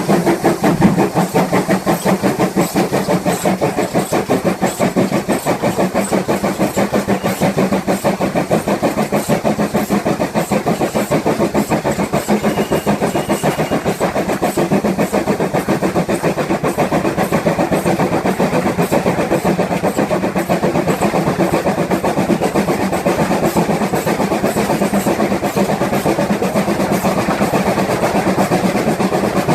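GWR 5600 class 0-6-2T steam tank locomotive 5619 under way, its exhaust beats coming in a fast, even rhythm.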